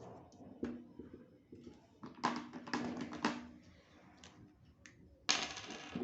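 Small clinks and taps of painting tools against hard surfaces. Several come in quick succession about two seconds in, and one longer scraping stroke comes near the end.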